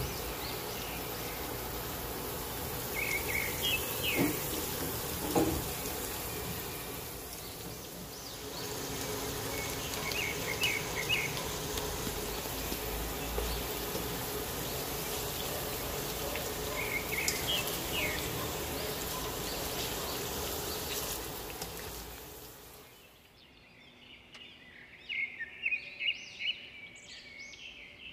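Hot oil sizzling steadily as sweet potato sticks deep-fry in a pan, with short bird-like chirps every several seconds. The sizzling stops abruptly about 23 seconds in, leaving quieter chirping near the end.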